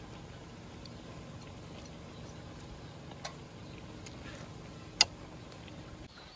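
A coconut-shell ladle clacks against a ceramic bowl of sauce: a soft click a little after three seconds in, then one sharp, loud knock about five seconds in. A steady low hum and a few faint ticks run underneath.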